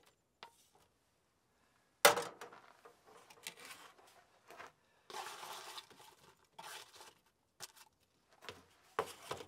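A metal frying pan is set down with one loud clank on the grate of a camp stove about two seconds in. A wooden spatula then scrapes and taps against the pan and plates in short spells as food is scraped onto tortillas.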